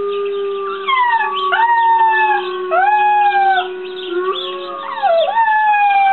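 Young puppy howling: about four short howls, each sliding down in pitch and then held briefly. A steady lower held tone runs underneath and steps up in pitch a little after four seconds.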